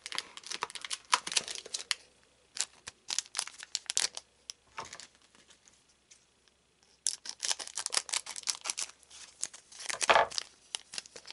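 A foil trading-card booster pack crinkling and crackling as it is pulled from the box and handled, with a quiet pause of about two seconds in the middle. Near the end the pack is torn open with a loud rip, the loudest sound.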